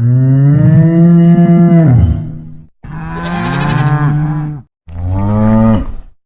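Cattle mooing: three long calls in a row, the second bending up and down in pitch.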